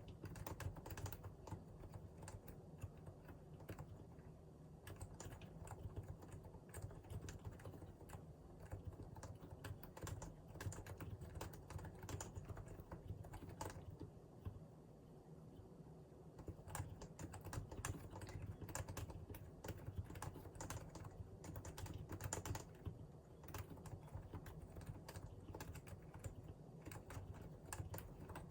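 Continuous typing on a Realforce R2 PFU Limited Edition keyboard with Topre electrostatic capacitive switches, keystrokes following each other in quick succession and thinning out briefly around the middle.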